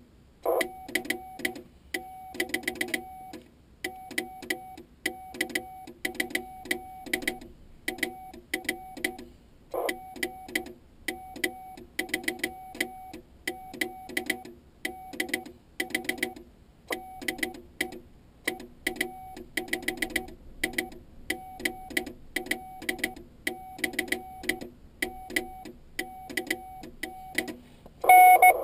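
Morse code sent by hand on a homemade telegraph key. The Icom IC-701 transceiver's CW tone beeps at one steady pitch in dots and dashes, and the key's contacts click in time with it. Near the end a louder tone comes in over radio static.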